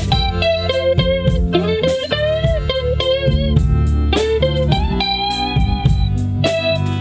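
Electric guitar playing a lead line with bent notes, over a steady low bass part and regular percussive hits.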